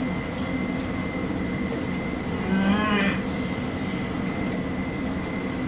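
A man's short hummed 'mmm' of appreciation while eating, about halfway through, over a steady room hum with a thin high whine.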